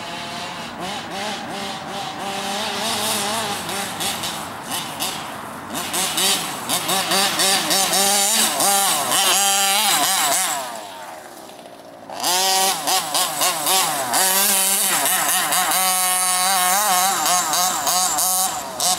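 Small two-stroke petrol engine of an FG radio-controlled monster truck revving up and down as it is driven. A little past halfway it falls back to a low idle for about a second and a half, then revs hard again.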